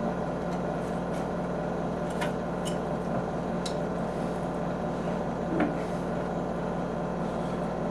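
Steady mechanical hum with a constant low tone, with a few faint, light clicks of a knife against a wooden cutting board as rabbit meat is cut off the bone.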